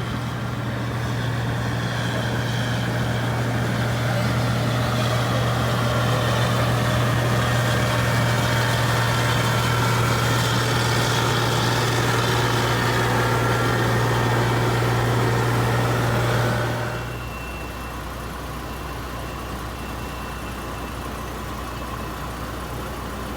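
New Holland Clayson 8070 combine harvester, powered by a Mercedes V6, running steadily at working speed. About three-quarters of the way through, its note drops sharply and settles to a quieter, lower hum.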